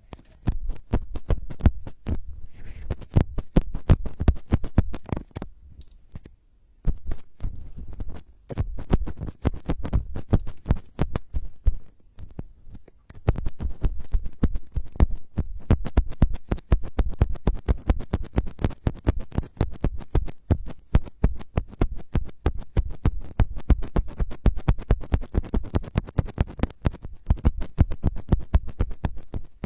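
Close-up ASMR trigger sounds: rapid scratching and tapping right on the microphone, many sharp strokes a second with a heavy low thud. There are brief pauses a few times, around six and twelve seconds in.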